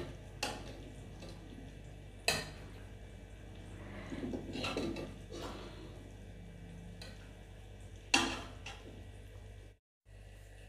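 A spoon clinking and scraping against metal cookware as cooked masala is spooned out of the pan into a mixer-grinder jar. Three sharp clinks, one just after the start, one about two seconds in and one about eight seconds in, with softer scraping between, over a low steady hum.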